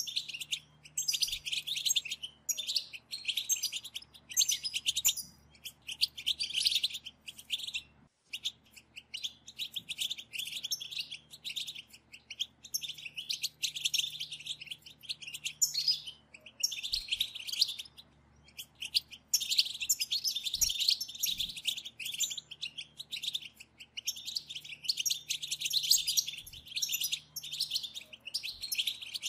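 Several female European goldfinches giving the 'batbata' twitter: rapid high chirps, densely overlapping, in bursts of a second or two with brief pauses. This is the call used to stir male goldfinches into song.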